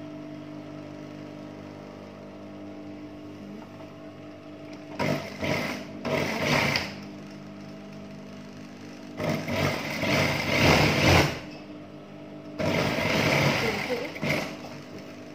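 JUKI industrial lockstitch sewing machine stitching in three short runs, starting about five seconds in and stopping near the end, over a steady low hum.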